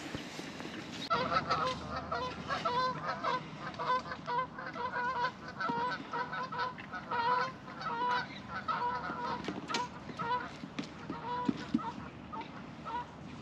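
Geese honking, a long run of short calls in quick succession that starts about a second in and thins out near the end.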